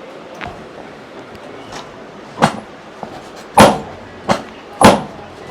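A run of sharp hits: a couple of faint taps early, then four loud, short impacts in the second half, spaced roughly a second apart.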